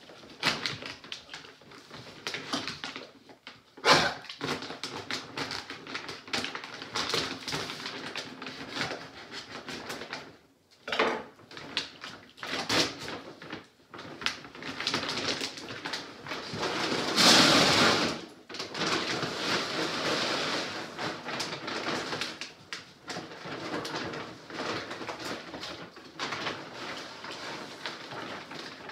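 Plastic dog-food bag rustling and crinkling as it is handled and opened, with scattered clicks and a louder rush of noise lasting about a second about halfway through, while a dog sniffs and makes small sounds at it.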